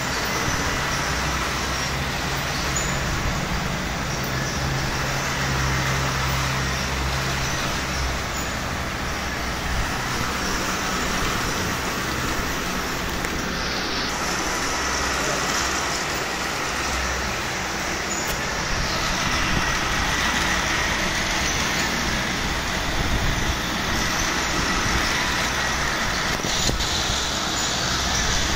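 Battery-powered plastic toy trains running on plastic track, a steady whirring rattle of their small motors and wheels.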